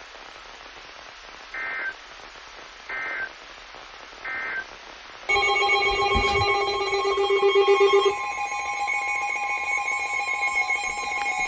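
Emergency alert broadcast tones over a faint hiss. First come three short, identical data bursts about 1.4 seconds apart, typical of a NOAA Weather Radio end-of-message code. Then, about five seconds in, a loud, steady electronic alert tone made of several pitches starts suddenly and holds; one low tone in it drops out about three seconds after it begins.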